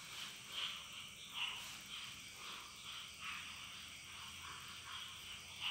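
Faint, irregular short animal calls in the background, a few small blips every second or so over a low steady hum.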